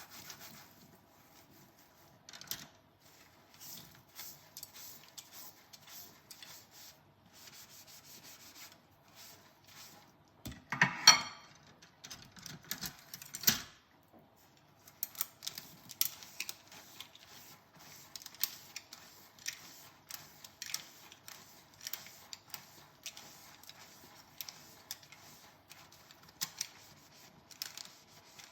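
Dishes being washed by hand: a sponge scrubbing on tableware, with scattered small clinks and scrapes. About eleven seconds in a dish clatters and briefly rings, and a sharp knock follows a couple of seconds later.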